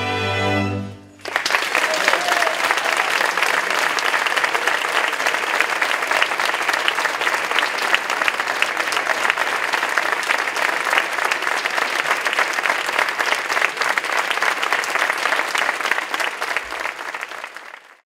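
A chamber string orchestra holds a final chord that stops about a second in. An audience then applauds steadily, and the clapping fades out near the end.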